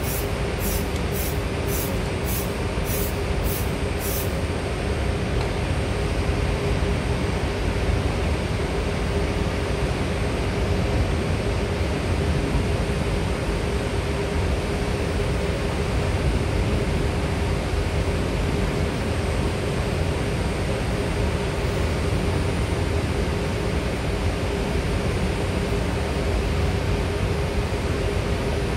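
Steady drone of running plant-room machinery, with a constant hum under an even rumble. In roughly the first four seconds an aerosol penetrant-test can gives a quick series of short, high spurts, about two a second, which then stop.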